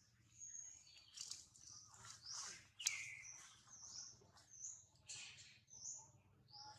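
Faint bird chirping: many short high calls and whistles, some sliding down in pitch, with a sharp click about three seconds in.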